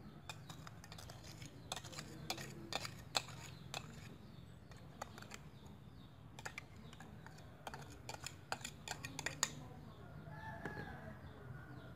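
Metal spoon clinking and scraping against a plastic tub and a glass bowl as seasoning powder is scooped out and sprinkled onto sliced raw beef: a run of irregular sharp clicks that stops about nine and a half seconds in.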